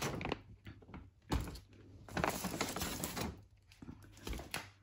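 Paper gift bags rustling and crinkling inside a brown paper shopping bag as they are handled, with a short knock about a second in.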